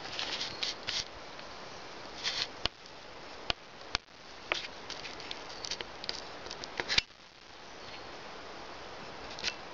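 Handling noise close to a handheld phone's microphone: scattered sharp clicks and brief rustles over a faint hiss.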